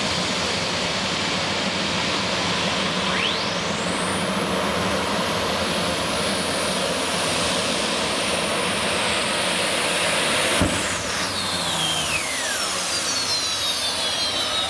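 Modified pulling tractor making a pull at full power: a loud, steady roar with a high whine that climbs steeply about three seconds in and holds. About ten and a half seconds in there is a sharp crack, and then the whine falls away as the engines wind down.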